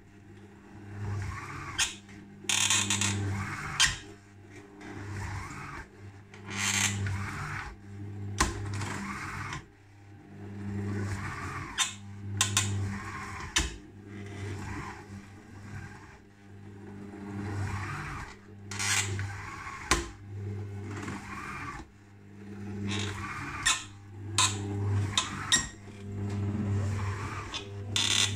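Kenwood Cooking Chef kitchen machine running, with a low hum that swells and drops every few seconds and scattered sharp clicks and creaking in between. This is the abnormal noise the owner films as a fault in the machine.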